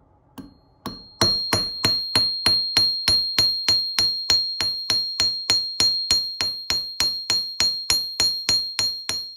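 A hammer striking copper wire on a steel anvil, flattening the ends of the ring into paddles. Two light taps, then steady blows about three a second, each leaving the anvil with a clear, high ring that carries between strikes.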